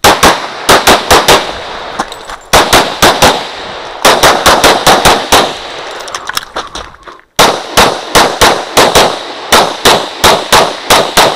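Glock 35 pistol in .40 S&W firing rapid strings of shots, with short pauses between strings and a brief silence about seven seconds in.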